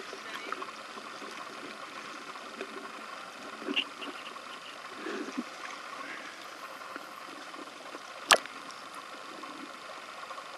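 Steady hiss of an indoor swimming pool hall, with a few faint knocks and splashes as a swimmer climbs out of the water onto the deck. One sharp click or slap stands out about eight seconds in.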